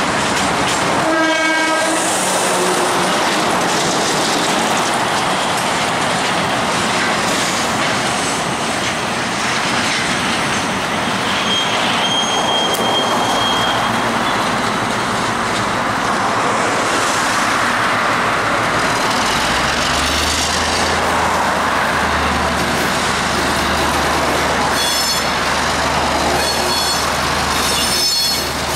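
KiwiRail DC class diesel-electric locomotive running under load as it hauls a container freight train, heard with steady road and wind noise from a pacing car. A short horn blast comes about a second in, the engine's low throb gets stronger from about two-thirds of the way through, and brief high ringing sounds come twice near the end.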